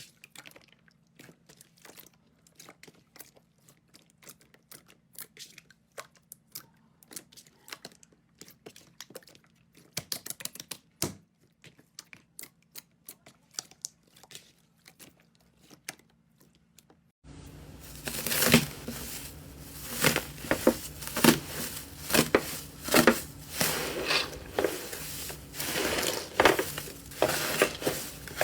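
Slime being handled by hand, giving off crackling and clicking: sparse and quiet at first, then after an abrupt change about two-thirds of the way through, much louder and denser crackles and pops.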